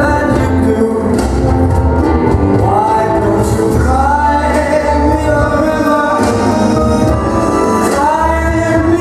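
Latin dance music playing loud with a singer: sung phrases slide up into held notes over a heavy, pulsing bass beat.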